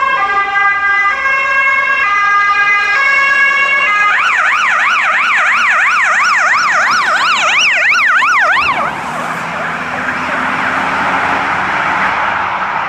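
Police car siren on a Volvo V90 Cross Country, first an alternating two-tone for about four seconds, then switched to a fast rising-and-falling yelp. The yelp cuts off about nine seconds in, leaving the car's engine and tyre noise as it drives past.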